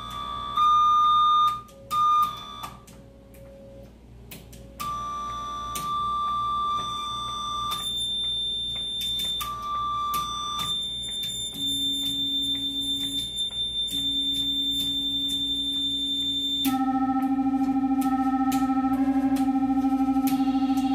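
Electronic tones: steady held pitches that switch every second or few, with clicks between them. Near the end a louder, lower buzzing tone with a fast wobble takes over.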